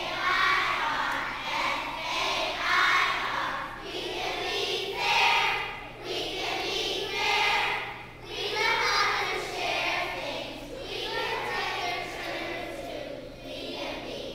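A group of young children singing together in unison, a song about being fair, in short phrases with brief breaks between them.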